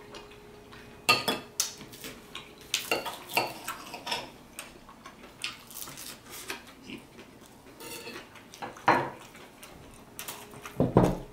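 Metal fork and knife clinking and scraping against a plate in irregular sharp clicks, a few louder ones among them, as food is cut and picked up.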